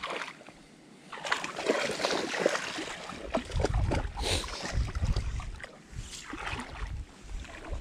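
Shallow creek water splashing and sloshing close by, with irregular crackles and a heavier low rumble from about three seconds in.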